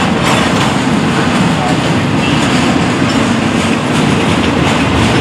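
Double-stack intermodal well cars rolling past at close range: a loud, steady noise of steel wheels on rail, with some clatter.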